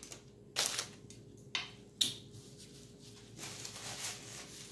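Close-miked eating sounds while chewing apple crisp: three short, sharp mouth clicks in the first two seconds, then a soft rustle of a paper napkin near the end.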